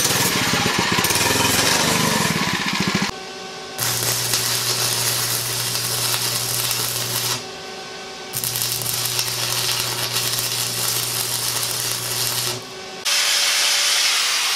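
Stick arc welding of nuts on a scooter axle: the arc crackles and hisses over a steady hum in two runs of about four seconds each, with short pauses between. It opens with about three seconds of loud rattling, and an angle grinder runs near the end.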